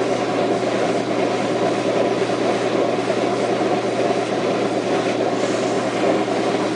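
Washing machine running with a steady hum and rumble, its motor trying to spin the drum while the drum does not spin.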